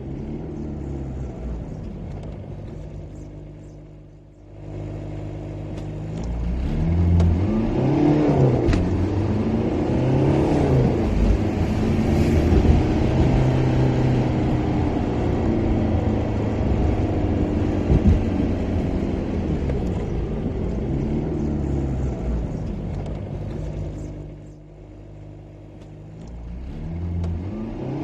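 Car engine accelerating hard, its pitch climbing and falling through several gear changes. It eases off briefly twice: about four seconds in and again near the end, before building once more.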